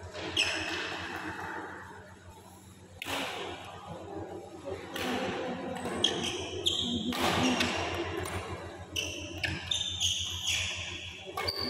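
Badminton rally on an indoor mat court: sharp racket strikes on the shuttlecock and players' shoes squeaking on the court, the squeaks coming thick and fast in the second half.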